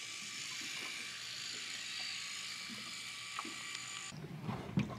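Cordless drill running steadily at high speed as the motor driving a homemade jet-drive pump's shaft, a thin high-pitched electric motor whine. It cuts off abruptly about four seconds in, and a single knock follows near the end.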